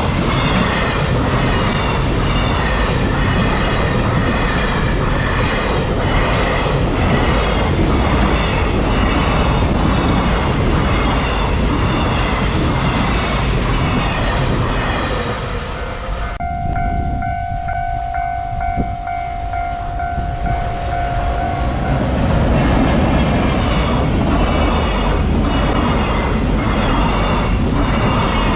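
Freight train hauled by an EF210 electric locomotive rumbling past, the wagons' wheels clattering over the rail joints. About halfway through the sound cuts off suddenly and a steady horn blast sounds for about five seconds, then the loud rumble and wheel clatter of a passing freight train return.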